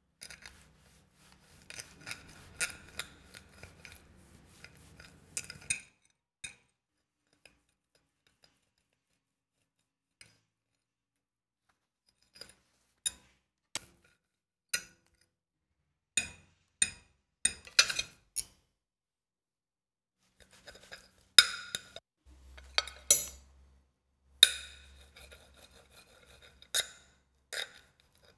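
Knife and fork scraping and clinking against a plate while cutting meat, in sharp separate strokes that come in clusters with pauses of several seconds between them.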